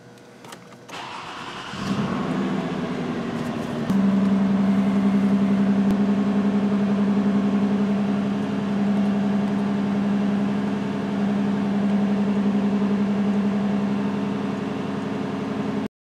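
A Toyota Solara's V6 engine, heard inside the cabin, being started: a second or so of cranking, then it catches and settles into a steady idle, which steps up in level about four seconds in. It idles with a cylinder-one misfire from a shorted ignition coil. The sound cuts off abruptly just before the end.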